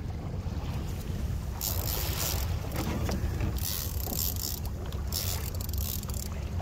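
Small boat's engine idling with a steady low hum, while gusts of wind hiss on the microphone from about a second and a half in.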